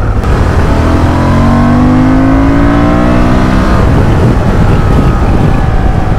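Honda Transalp's twin-cylinder motorcycle engine accelerating under a rider, its pitch climbing steadily for about three seconds before breaking off near four seconds in, over a heavy low rush of wind on the microphone.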